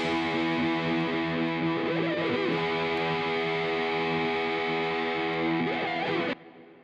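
Background music: distorted electric guitar holding sustained chords, cut off suddenly about six seconds in, followed by a brief fading tail.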